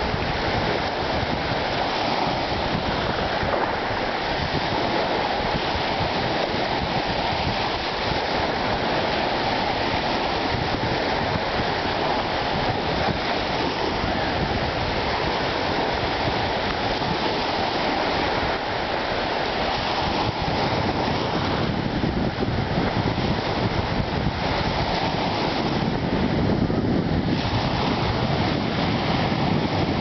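Small sea waves breaking and washing onto a sandy shore in a steady surf noise, with wind rumbling on the microphone.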